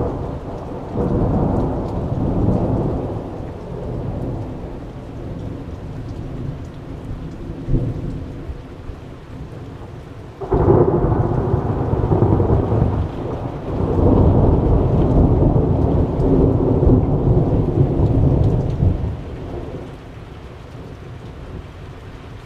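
Thunder rolling, deep and bass-heavy, in two long peals. The first rumbles and fades over several seconds. The second breaks in suddenly about halfway through, rolls loudly for some eight seconds, then dies away.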